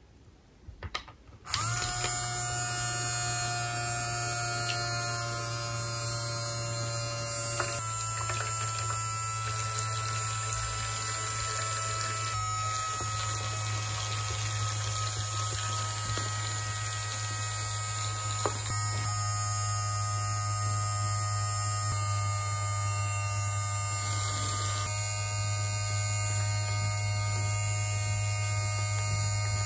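A toy bathtub playset's small battery-powered water pump switches on after a few light clicks about a second and a half in and runs with a steady low hum. Water streams from its toy shower head into the tub.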